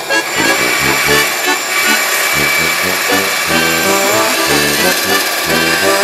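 Background music with a rhythmic bass line of short stepped notes, over a steady hiss that runs underneath.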